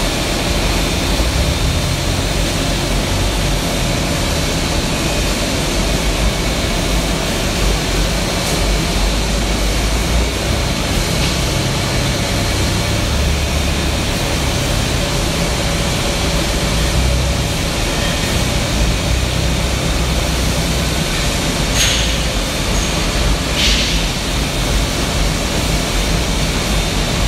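Horizontal band saw running and cutting through a stainless steel pipe, a steady mechanical drone, with two brief high hisses about a second and a half apart near the end.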